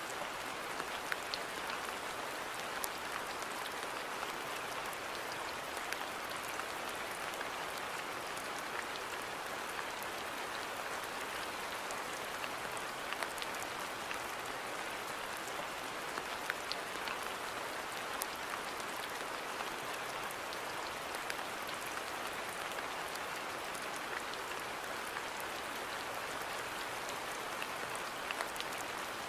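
Steady rain falling, an even hiss with scattered sharp ticks of individual drops striking nearby surfaces.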